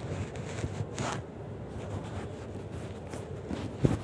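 Rustling and scraping from hands working the cut sensor wires, over a steady background noise, with a sharp knock near the end.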